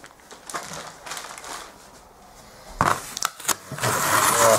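Box packaging being handled: light rustles and clicks, a sharp knock about three seconds in, then a longer crinkling, scraping rustle near the end.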